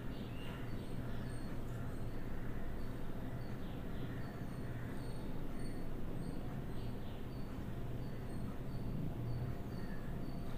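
Steady low background hum and hiss, room tone between narration, with faint short high-pitched ticks repeating roughly once a second.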